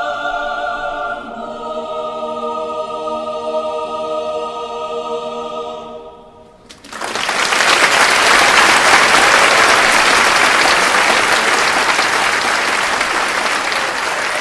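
A choir holds a final sustained chord, which shifts once about a second in and fades out near six seconds in. Then an audience bursts into loud applause that carries on.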